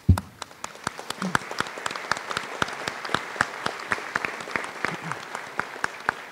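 Audience applauding, many hands clapping at once with single sharp claps standing out. The applause opens with one short low thump.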